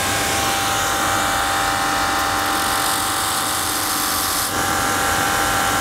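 Shoe-repair finishing machine running steadily while the worn rubber half sole of a climbing shoe is ground off against its sanding wheel, a continuous grinding hiss over the motor's hum. The hiss drops slightly about four and a half seconds in.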